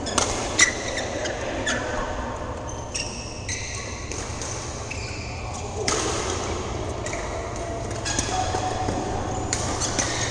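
Badminton rackets striking shuttlecocks on several courts at once: sharp cracks and pings at irregular intervals, the loudest about half a second in, echoing in a large hall. Short high squeaks come between the hits, typical of sports shoes on court mats.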